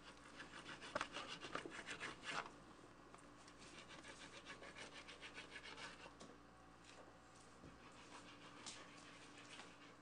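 Kitchen knife sawing through raw fish fillets: a quick run of soft scraping strokes, loudest in the first two seconds and then fainter.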